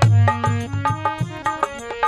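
Instrumental interlude of a Rajasthani devotional bhajan: a quick melody of short, stepping notes over a steady hand-drum beat with deep strokes.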